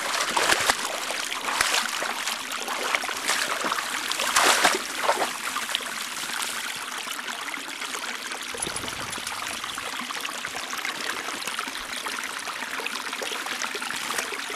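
Creek water flowing and trickling steadily, with a short louder rush of water about four seconds in.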